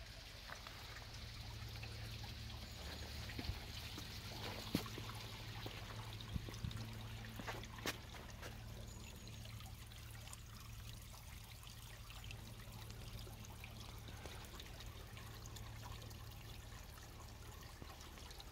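Faint trickle of water in a shallow garden stream running over stones, with a few sharp clicks in the first half.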